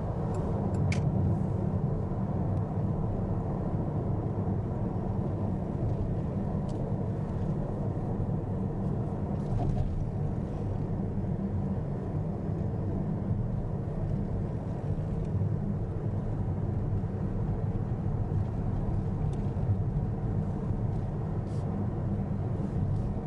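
Steady low road rumble of a Mitsubishi Outlander PHEV on the move, with no change in pace.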